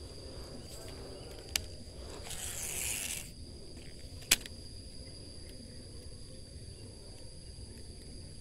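Insects droning steadily in a single high tone, over the handling of a baitcasting rod and reel. There is a click about one and a half seconds in, a brief high whir lasting about a second just after two seconds, and a sharp, louder click a little after four seconds.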